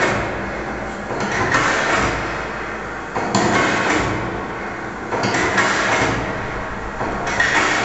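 Experimental sound-art piece: a sharp percussive hit about every two seconds, each one fading away into a long, noisy tail.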